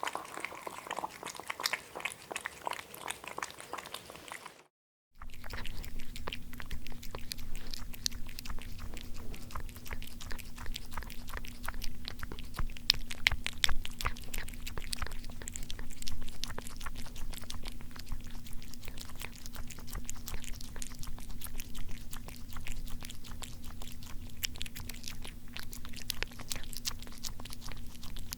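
Chewing and crunching from two separate eating recordings, with a brief silent gap about five seconds in; the second has a steady low hum beneath it.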